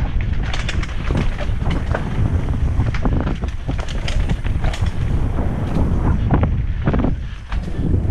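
Wind buffeting a helmet-mounted camera's microphone on a fast mountain-bike descent, over a steady low rumble. Frequent clicks and knocks come from the bike rattling over the rough dirt trail. The sound dips briefly a little after seven seconds in.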